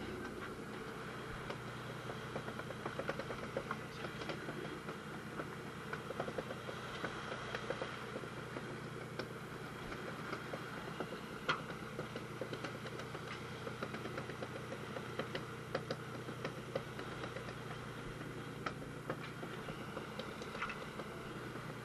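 Fishing boat's engine running steadily, with scattered clicks and knocks over it.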